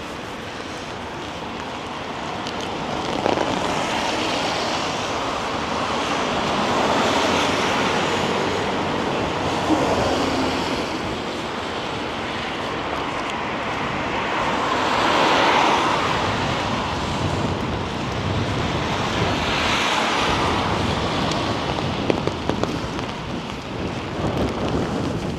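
Vehicles passing on a wet street: a steady hiss of tyres on wet pavement that swells and fades several times, loudest about fifteen seconds in.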